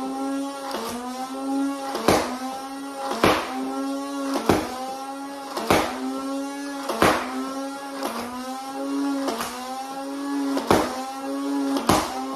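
Nerf Elite Infinus motorized flywheel blaster firing single shots, about ten in all at roughly one every 1.2 seconds, over the steady hum of its spinning flywheels. Each shot is a sharp click, and the hum's pitch sags and then climbs back as the flywheels recover.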